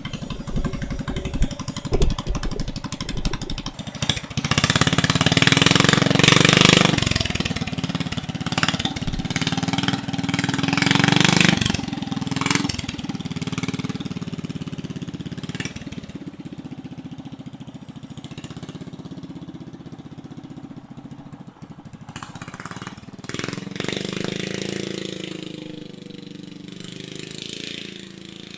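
Straight-piped 340cc single-cylinder engine on a stretched minibike, fed by a 34 mm flat-side carburetor on its stock jets, running loud. It revs up hard for several seconds, then drops back and fades, and rises briefly again near the end. The owner thinks the stock jets are too small and that it runs a little lean.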